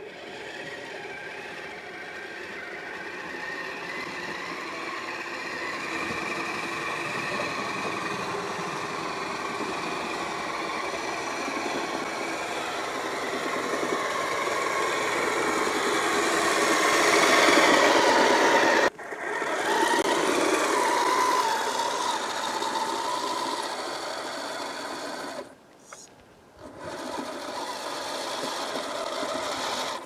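Kyosho Blizzard SR radio-controlled snowcat's electric motor and gearbox whining steadily as it drives on its tracks, plowing snow, growing louder as it approaches. The sound breaks off abruptly twice in the second half.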